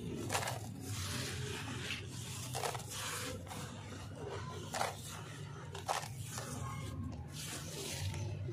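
Wet, gritty charcoal-and-sand chunks being crumbled and squeezed by hand, with a scraping, crunching grind and a few sharp cracks as pieces break off and drop into the watery slurry. A low steady hum runs underneath.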